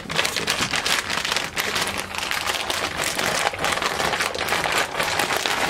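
Plastic packaging bags crinkling continuously as they are handled by hand.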